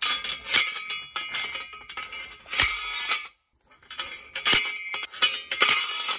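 Steel post driver slammed down again and again onto a steel fence post used as a chisel against a rock: a series of metal-on-metal clangs a second or so apart, each ringing on. The heaviest strike comes about two and a half seconds in.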